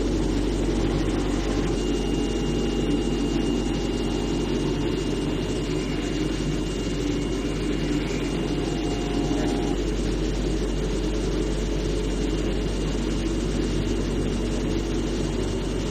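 CNC cutting machine running steadily: a dense mechanical hum with a thin, steady high whine that comes in about two seconds in.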